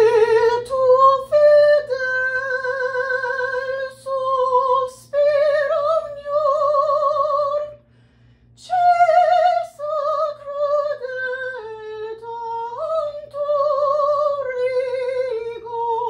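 A woman singing a run of held notes with vibrato, stepping up and down in pitch, with a short break for breath about halfway through. She feels she sang it with her stomach pulled in, which her teacher says lets the stomach help too much and adds tension.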